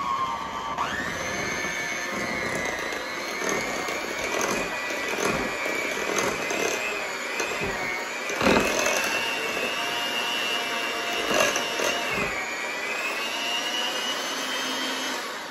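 Electric hand mixer running with its beaters in thick powdered-sugar strawberry frosting in a glass measuring bowl. The motor whine jumps up in pitch about a second in and then climbs slowly, with a few knocks of the beaters against the bowl, and stops near the end.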